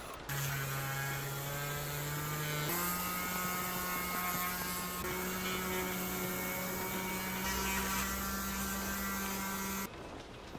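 Small electric power tool motor running steadily, its pitch stepping up a little after a few seconds; it stops shortly before the end.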